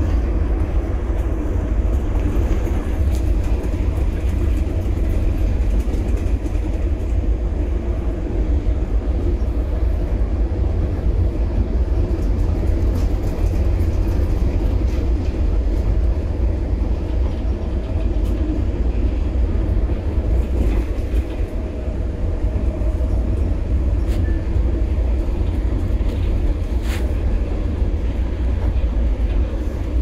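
Passenger train in motion: a steady low rumble of running on the rails, with a few faint clicks.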